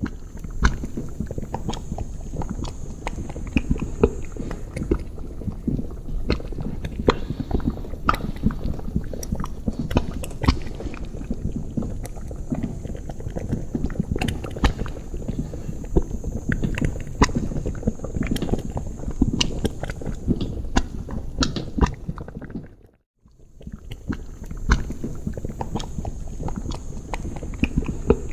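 Liquid bubbling steadily in a cauldron: a dense low gurgle with frequent sharp pops of bursting bubbles. It fades out briefly about two-thirds of the way through, then starts again.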